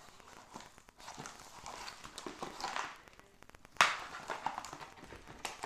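Small doll clothes and accessories being handled and set down on a glass tabletop: soft rustles and light taps, with one sharper tap about four seconds in.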